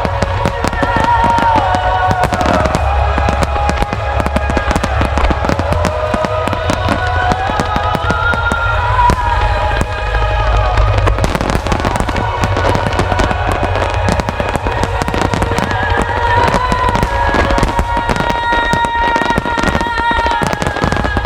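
Starmine finale barrage of aerial firework shells: rapid, overlapping booms and cracks with a heavy low rumble. Loud show music with a melody runs alongside.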